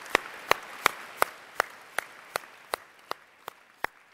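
Audience applause dying away, with one pair of hands clapping close to the microphones: sharp, evenly spaced claps about three a second that carry on after the crowd has faded.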